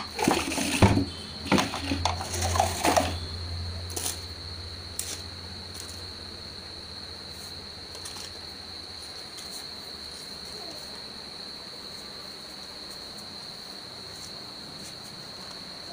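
A cricket trilling steadily in one unbroken high tone. Several loud knocks and bumps come in the first three seconds, and a low hum fades out about ten seconds in.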